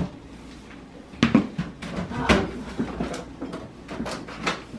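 Irregular knocks and clatters, a few each second, starting about a second in.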